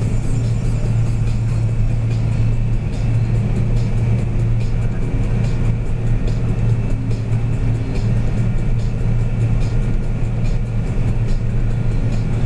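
John Deere 9650 STS combine harvester heard from inside its cab while harvesting: a steady, loud diesel engine and machinery drone with a faint high whine over it.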